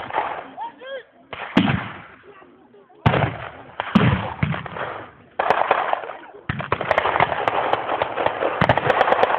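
Blank-fired gunfire and blasts: several heavy reports, each with a long echoing tail, a second or so apart, then a few seconds of dense, near-continuous firing with many sharp cracks near the end.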